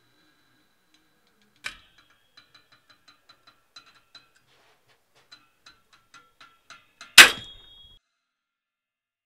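A run of faint irregular ticks as an old PVC fly line is pulled tight on a spring fish scale, then one loud sharp snap about seven seconds in as the line breaks, with a brief metallic ring from the brass scale springing back.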